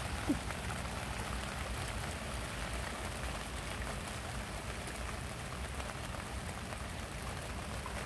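Steady rain falling on grass and leaves, an even hiss full of small drop ticks, with a low rumble underneath. Just after the start comes one brief, short chirp-like blip.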